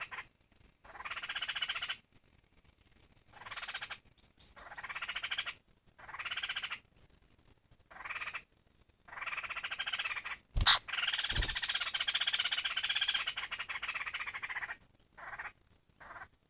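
Laughingthrush (khướu) giving its harsh, rasping 'kíu' calls in repeated bouts of about a second each, with a longer unbroken run of calling in the second half. A sharp click comes about ten and a half seconds in.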